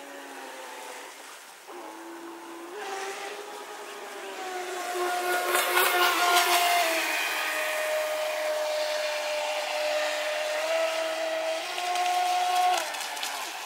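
Radio-controlled model boat's motor whining as the boat runs on the water. The pitch steps up and down with the throttle, and the sound grows louder about four seconds in.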